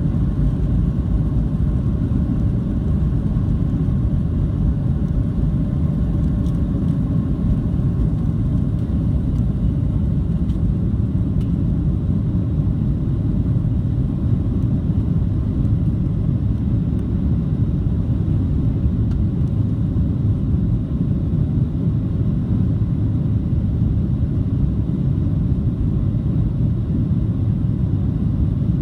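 Steady low rumble inside the cabin of a Boeing 737-700, its CFM56-7B turbofan engines running, with a faint steady hum above the rumble.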